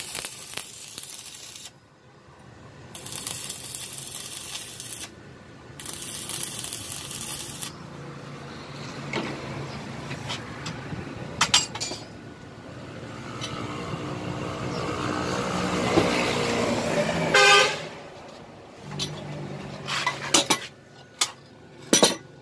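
Arc welding on a steel motorcycle swing arm, crackling in three bursts over the first eight seconds. Later a passing vehicle's engine rises to a peak and a horn sounds, and a few sharp metal clanks follow near the end.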